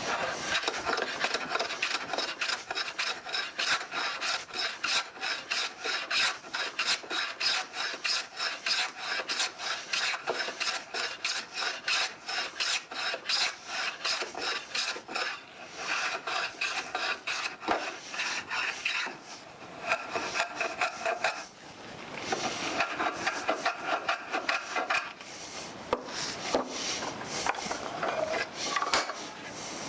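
Hand plane, likely the Stanley #3 Bailey smoothing plane with its sole rubbed with beeswax, taking repeated shaving strokes along a wooden block to square it, with a few brief pauses partway through.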